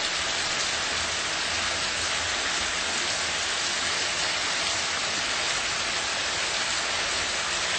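Mussels cooking in a pan of oil and tomato, sizzling with a steady, even hiss.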